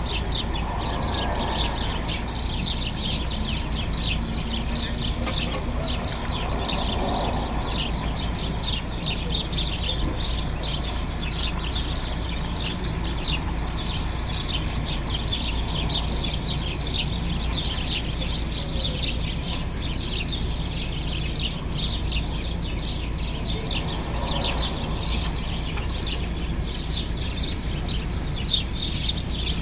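A flock of house sparrows chirping constantly, many short overlapping chirps with no break, over a steady low background rumble.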